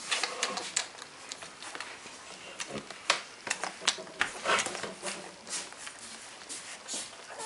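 Week-old Gordon setter puppies suckling at their mother, a string of short, sharp suckling noises, the loudest about three and four seconds in.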